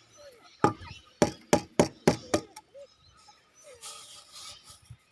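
Six sharp knocks in quick succession over about two seconds, with a few soft chicken clucks between and after them.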